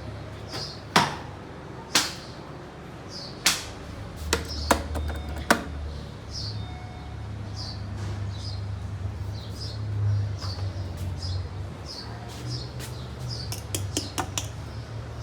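Several sharp clicks and knocks in the first half, over a steady low rumble, while a small bird gives short, high, falling chirps over and over, about once or twice a second.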